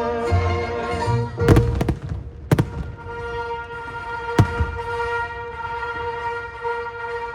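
Aerial firework shells bursting: a quick cluster of sharp bangs about a second and a half in, another a second later, and a last one near the middle, over show music holding a long sustained chord.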